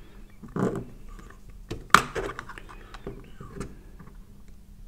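Two screwdriver tips levering at the clipped plastic casing of a surge protection device module: irregular clicks and scrapes of metal on plastic, with one sharp click about two seconds in.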